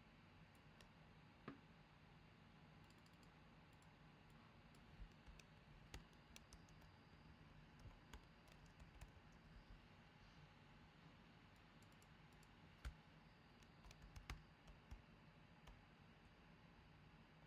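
Faint, irregular clicks of typing on a computer keyboard, with the odd mouse click, over a low steady hum.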